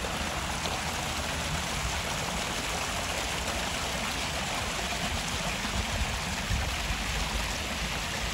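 Water running steadily down a narrow stone-lined channel: an even rushing with no breaks.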